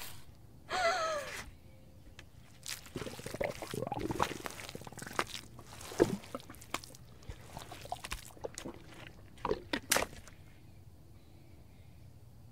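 A short high cry that falls in pitch, then irregular wet squelching and sloshing of quicksand mud as a body sinks, with sharper wet splats around six and ten seconds in.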